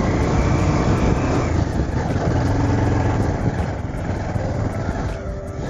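Bajaj Pulsar 220 motorcycle engine running while being ridden, a steady dense noise that eases slightly near the end.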